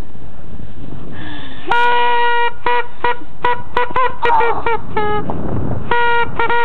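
A horn with one steady pitch tooting: a blast of nearly a second, then a quick run of about ten short toots, one sliding down in pitch at its end, then a short blast and a couple more toots near the end.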